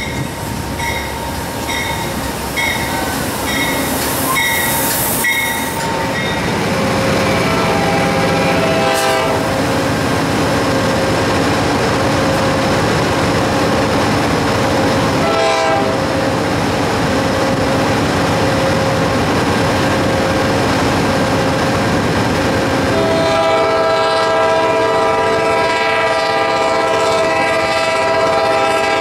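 Train passing with a bell ringing in a steady rhythm of about one and a half strokes a second at first, then locomotive horn blasts: a short one around seven seconds in, another near the middle, and a long, loud horn chord from about 23 seconds on as a Tri-Rail commuter train approaches the grade crossing.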